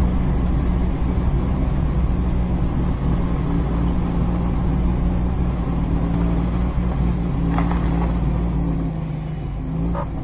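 Car driving along at a steady speed: continuous engine and road noise with a low steady hum. Two brief clicks come near the end.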